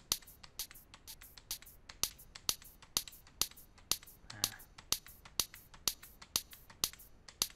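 Snare sound made from a sampled hand clap, played over and over in a sampler at about two sharp clap-like hits a second. Its attack is being turned on a macro knob, which sets how hard or soft the start of each hit sounds.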